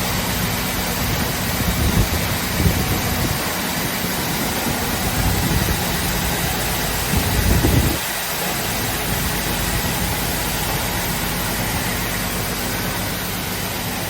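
OTT Omega 110 wide-belt sander running: a steady mechanical whir of belts and motor. A heavier low rumble swells a few times and stops about eight seconds in.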